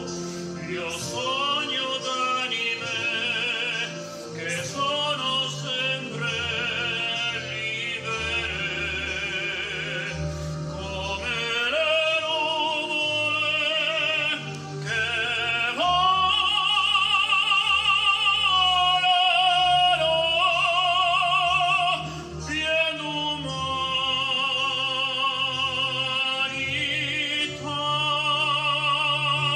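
A man singing in full operatic voice with wide vibrato, in long held phrases with short breaths between, over an instrumental accompaniment.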